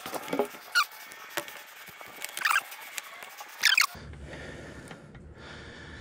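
Outdoor ambience with three short, high squeaky chirps, typical of a small bird calling. About four seconds in the sound changes abruptly to a low hum and soft rustling as a solar panel's cables are handled.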